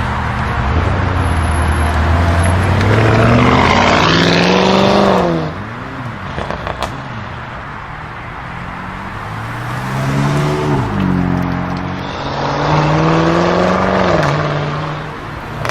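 Audi RS6 C7 Performance's twin-turbo V8 breathing through a Milltek exhaust, revving hard. Its note climbs for a few seconds and falls away about five seconds in, with a few sharp pops as the revs drop. Two more climbs follow, the last held for a couple of seconds before falling near the end.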